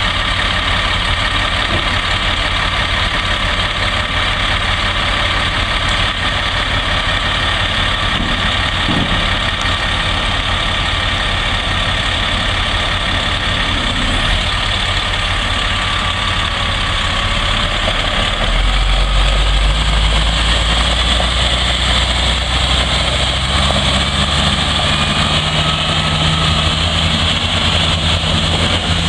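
Caterpillar 3126 inline-six diesel in a 1998 Ford Louisville L8501 dump truck, running steadily at idle with no revving. About two-thirds of the way through the sound turns louder and deeper.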